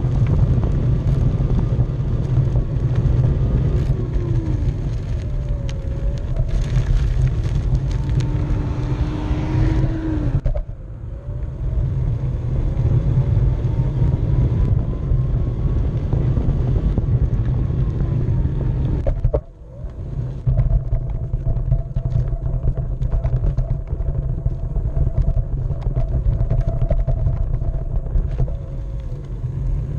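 Onewheel electric board riding over pavement: steady rumble of the wheel rolling on asphalt, with the hub motor's thin whine rising and falling in pitch as speed changes. The sound briefly drops away about two-thirds of the way through.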